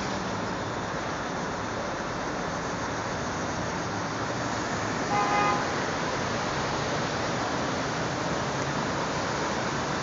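Steady city street traffic noise, with one short car horn toot about five seconds in.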